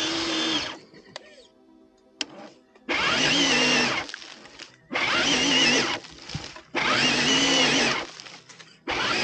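Electric motor and gear drivetrain of an RC scale crawler whining in short throttle bursts of about a second each, with pauses of about a second between, as it climbs a steep root-covered slope. The first burst is already running at the start and ends soon after; three more follow, and a fifth starts near the end.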